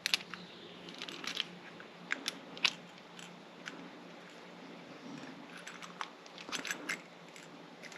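Small metal clicks and scrapes from a lock cylinder and shim being worked by hand, as the stiff, crusty plug resists coming out. The clicks are scattered, with small clusters about two seconds in and again near the end.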